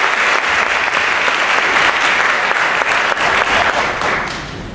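Theatre audience applauding, a dense patter of clapping that dies away near the end.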